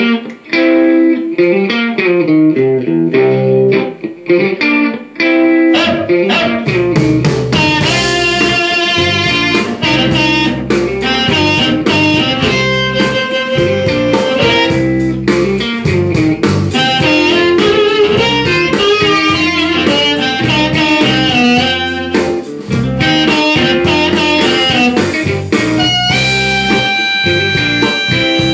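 Amplified blues harmonica: a B-flat harp played in third position through a Turner 254 harp mic with a White Label 99H86 controlled-reluctance element, over a blues backing track with electric guitar. Near the end, long notes are held.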